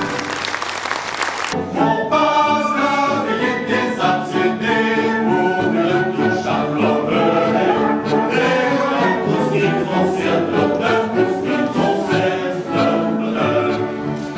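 Male chorus singing with orchestral accompaniment, in operetta style. It comes in on an abrupt cut about a second and a half in, replacing a brighter, noisier passage.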